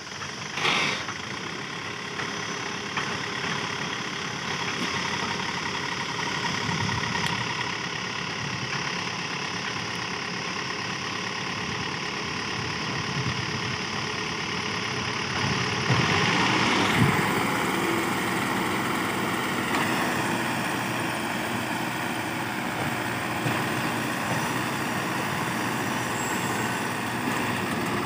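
Small tipper truck's engine running steadily while its hydraulic hoist tips the loaded bed to dump soil, the engine getting louder about sixteen seconds in.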